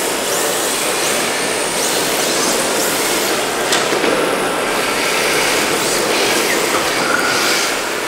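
1/10-scale RC drift cars sliding across a smooth concrete floor: a steady hiss of hard tyres scrubbing, with faint high motor whines rising and falling, and a single sharp tick just before the middle.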